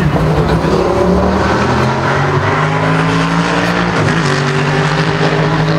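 An engine running steadily: a continuous pitched drone that wavers a little in pitch.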